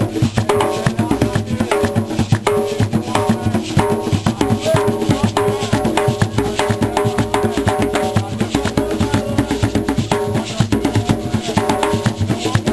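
Group of djembe-style hand drums played together in a fast, steady, dense rhythm, with a short pitched figure repeating every second or two above the drumming.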